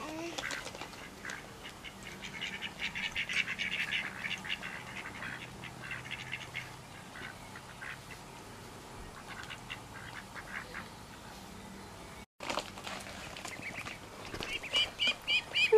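Ducks and ducklings calling: runs of quick, short calls, faint for most of the stretch and louder in an even run near the end.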